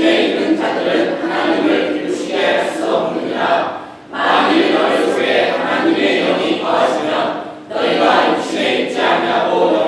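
A group of teenagers voicing a Bible passage together in unison, in phrases with short breaks about four seconds in and again near the end.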